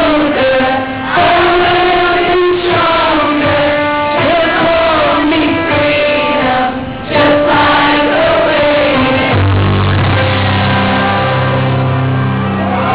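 Live band performance with a male vocalist singing into a microphone and crowd voices singing along in held, drawn-out notes. About nine seconds in, deep sustained low notes come in underneath.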